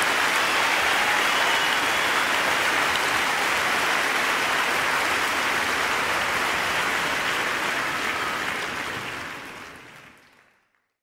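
Crowd applause, a dense steady wash of clapping that fades out over the last two seconds to silence.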